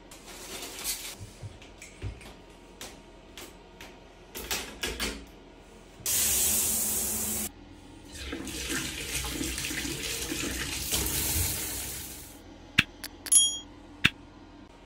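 Light metal clicks and knocks as the braided hose is fitted to a chrome vintage bath-shower mixer, then water from the mixer: a loud hissing spray for about a second and a half, and after a short gap a steady run for about four seconds that fades out. Near the end come a few sharp clicks and a short bright chime.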